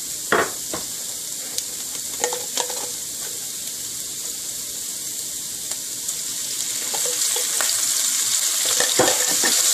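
Cumin seeds and chopped ginger sizzling in hot oil in a ceramic-coated frying pan, with a few scraping strokes of a wooden spatula. The sizzle grows louder over the last few seconds.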